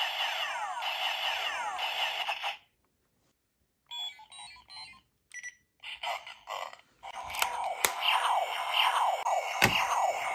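Kamen Rider 555 CS replica transformation belt playing electronic sound effects through its small speaker. A looping standby sound of falling sweeps cuts off about two and a half seconds in. After a pause come short beeps, then from about seven seconds a dense electronic effect with several sharp hits.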